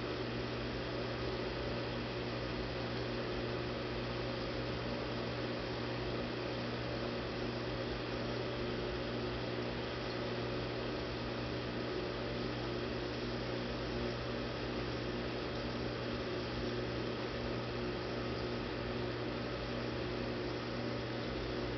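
Steady hum and hiss of aquarium equipment running: a constant low drone with a few faint steady tones above it, unchanging throughout.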